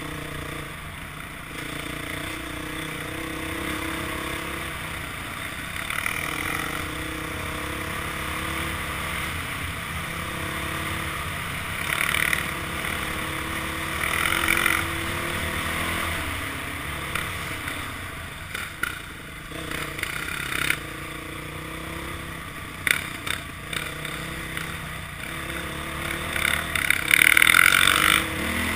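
Dirt bike engine running as it is ridden along a trail, its note rising and falling with the throttle, with several short louder spikes.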